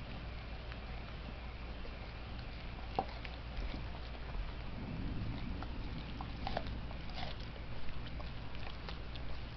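Dog chewing a raw pig's leg and trotter: irregular crunches and clicks of teeth on bone and hoof, over a steady low hum.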